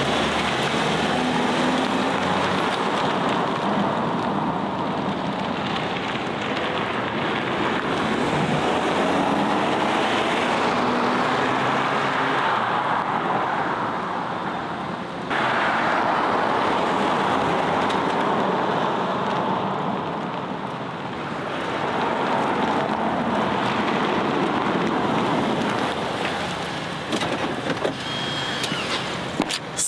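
Loud exhaust and engine of a Lexus NX SUV pulling off and accelerating away, then driving back, the sound swelling and fading in broad waves.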